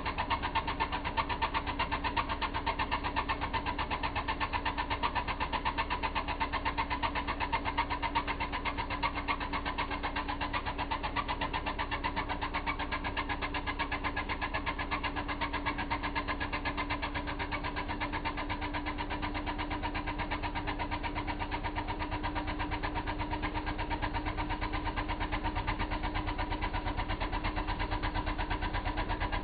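Engine running steadily at idle: an even, fast pulse over a constant hum.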